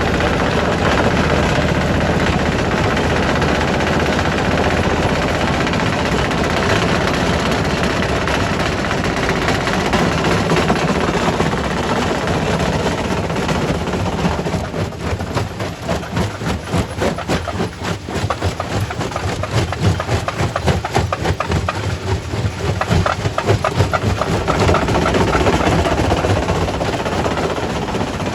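Primary rock crusher running under load, crushing stone with a dense, steady mechanical racket. About halfway through it turns to a fast, rattling run of sharp knocks for several seconds, then returns to the steady crushing noise.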